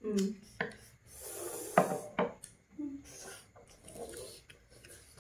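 Eating sounds: crunching and rustling of fresh lettuce and herbs being handled and chewed, with a few sharp clicks scattered through.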